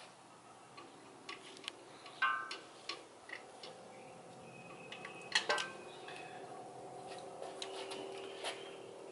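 Scattered light metallic clicks and taps of rocker arms and other valve-train parts being handled and set on a 6.7 Cummins diesel cylinder head. The sharpest come about two seconds in and again around five and a half seconds in, over a faint steady hum.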